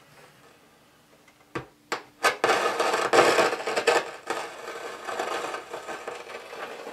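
A few sharp clicks and knocks on a boombox's case about two seconds in, then a loud rough rushing noise that eases into a steadier, lower hiss.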